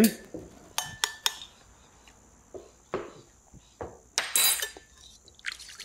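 Wire balloon whisk clinking and tapping against a ceramic bowl while whisking a dressing: a few sharp, irregular clinks, with a short scraping rush of whisking about four seconds in.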